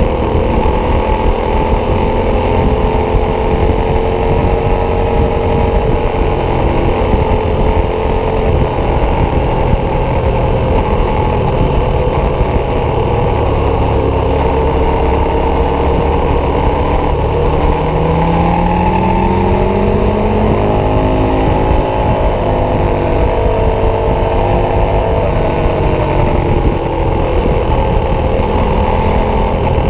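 KTM 1190 Adventure's V-twin engine, fitted with an aftermarket Wings exhaust, running at a steady cruise of about 100 km/h with wind noise over the microphone; about two-thirds of the way through, the revs climb, then hold.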